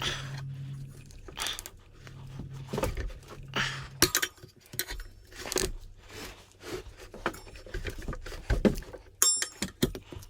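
Metal tire irons clinking, knocking and scraping against a motorcycle wheel rim while a tube-type tire is worked onto it, in irregular short strikes and scrapes.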